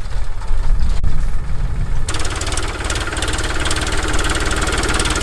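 Powertrac 439 Plus tractor's diesel engine running steadily. At first it is dull and distant, then after about two seconds it is suddenly much closer and fuller, with a fast even firing beat.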